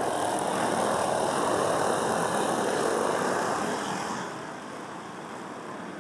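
A pack of racing go-karts with 5 hp Briggs & Stratton Raptor single-cylinder engines running at full throttle as they pass close by, loud at first and fading about four seconds in as they pull away.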